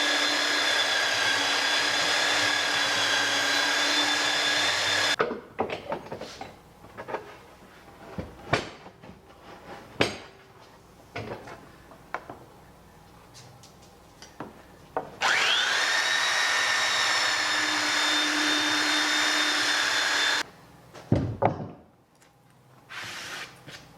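Electric sander running on the edges of wooden boards for about five seconds, then switching off. After a stretch of light knocks and clatter of the boards being handled, it starts again with a rising whine and runs about five seconds more before cutting off.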